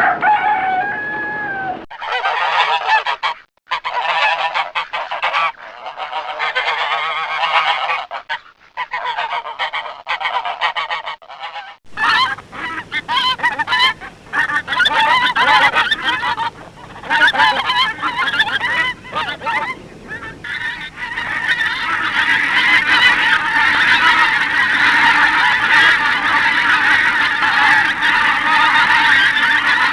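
A flock of waterfowl calling, with many overlapping honking calls. The recording changes abruptly a few times, and the calling thickens into a dense, steady chorus over the last third.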